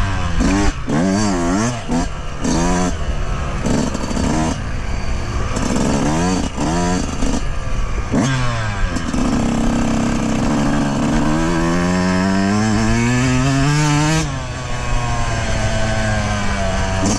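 2020 Yamaha YZ125's single-cylinder two-stroke engine revving up and down while being ridden, with several quick rises and falls in pitch, then one long rising pull that drops off sharply near the end.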